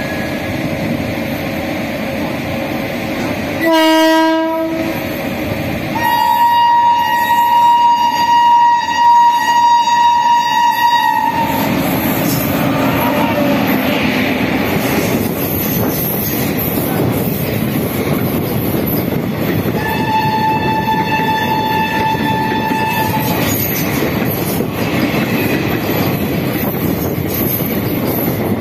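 Indian passenger train rolling past, wheels clattering steadily over the rails, with train horns sounding three times: a short low blast about four seconds in, then a long higher blast of about five seconds, and another higher blast of about three seconds past the twenty-second mark.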